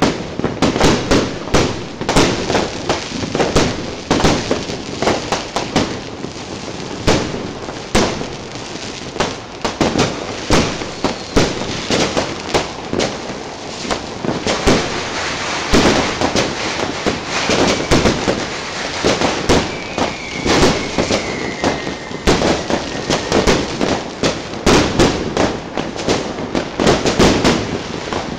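Fireworks going off in a dense barrage: a continuous run of bangs and crackling. A few faint whistles glide down in pitch midway.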